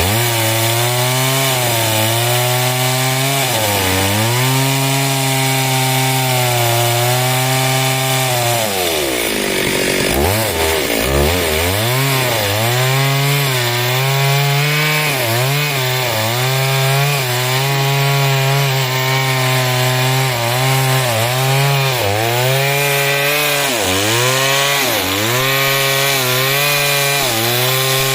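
Stihl two-stroke chainsaw sawing wood, its engine note sagging and recovering again and again as the chain bogs under load. About nine seconds in the revs fall right off, then climb back up within a couple of seconds.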